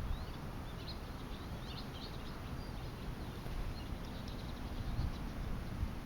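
Small birds chirping faintly, many short high calls scattered mostly through the first four seconds, over a steady low outdoor background rumble.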